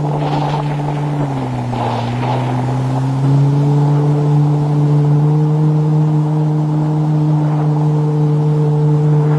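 A boat's motor running steadily. It drops in speed about a second in and picks up again around three seconds, running a little louder after that.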